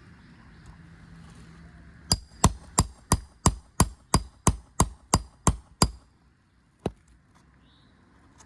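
Roofing hammer striking a nail puller, metal on metal, twelve quick even blows about three a second, driving the puller onto a roofing nail under an asphalt shingle, then one more blow about a second later.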